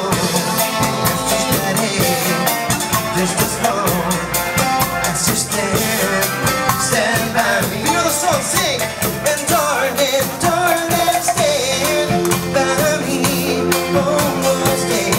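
Live street band playing, with a steady drum beat under pitched instruments and singing.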